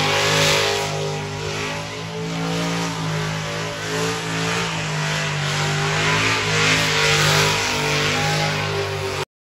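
A burnout car's engine held at high revs, its pitch wavering up and down as the rear tyres spin, over a steady hiss. The sound cuts off suddenly near the end.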